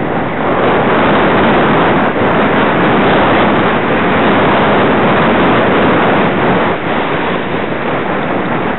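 Sledge running fast over snow: a loud, steady rushing and scraping of runners on snow, mixed with wind blowing over the microphone.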